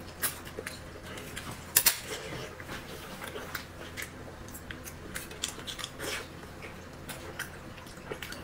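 A man eating noodles close to the microphone: wet chewing, slurps and lip smacks with a few sharp clicks, the loudest a quick pair about two seconds in.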